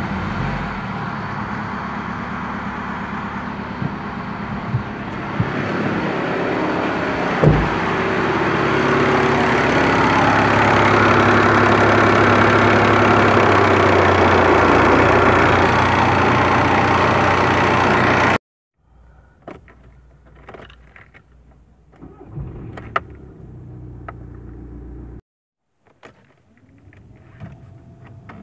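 VW Golf 4's 1.9 TDI ALH four-cylinder diesel engine running at idle just after a start, getting louder a few seconds in. It cuts off suddenly and gives way to quieter clicks and knocks.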